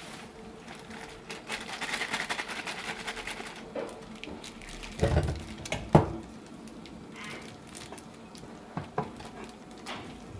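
Handling noise: rustling for a couple of seconds, then two dull knocks about five and six seconds in, and a few light clicks after that.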